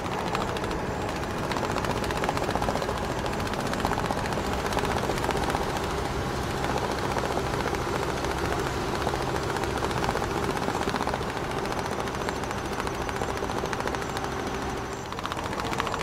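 Small electric motor of a homemade toy tractor running steadily, a steady hum under a fast, even rattle, as it drives its trolley load over sand.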